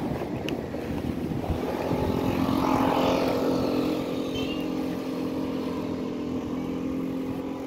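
A motor vehicle's engine running, swelling to its loudest about three seconds in and then holding a steady hum.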